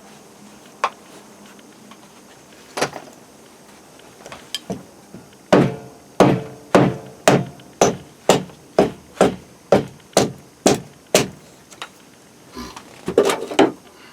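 A run of about a dozen hard, ringing blows, roughly two a second, like hammering on something, after a few scattered knocks and followed by a quick cluster of knocks near the end.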